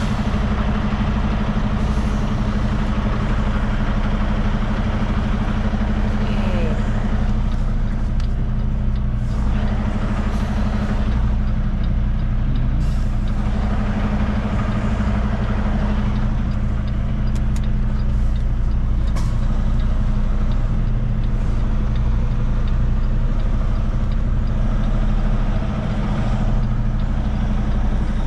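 Kenworth semi-truck's diesel engine running steadily at low revs, heard with the driver's window down, with a few stretches of hiss over it.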